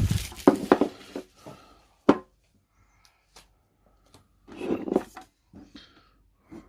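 Handling and opening a metal trading-card tin on a tabletop: a series of separate knocks and clicks, with a short stretch of rubbing and rustling about two-thirds of the way through as the contents are lifted out.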